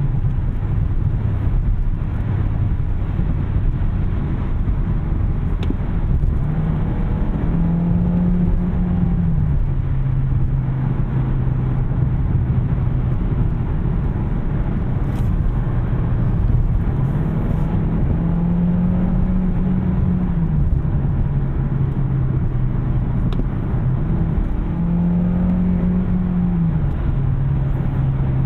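2021 Kia K5 Hybrid sedan driving, with steady road and tyre noise under a low hum. The hum rises in pitch and falls back three times as the engine speed goes up and down.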